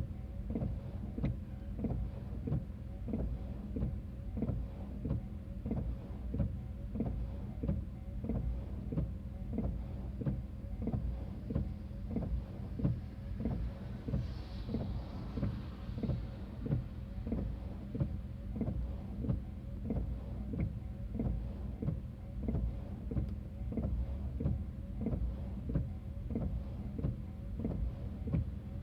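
Japanese level-crossing warning bell ringing steadily, about three strikes every two seconds, over a steady low rumble.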